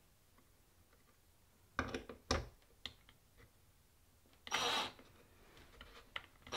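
A few light knocks and clicks of a metal shelf bracket and screw against an MDF panel, then about halfway through a brief half-second run of a cordless drill driver.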